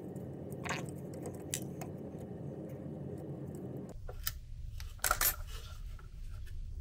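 Small clicks and rattles of plastic and metal parts as fingers work the hotend of a Bambu Lab P1P 3D printer loose, with a louder clatter about five seconds in. A low steady hum runs under it and stops about four seconds in.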